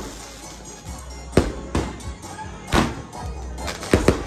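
Diamond Fireworks 'Greenlight' 64-shot cake firing, its shots going off as sharp bangs roughly a second apart, two in quick succession near the end, with a low rumble between.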